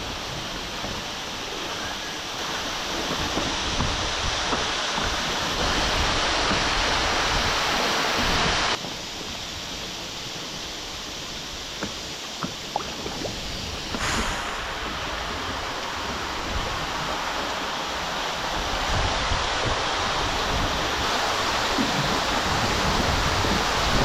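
Steady rushing of water, with a few small knocks. The sound changes abruptly in level and character about nine and fourteen seconds in.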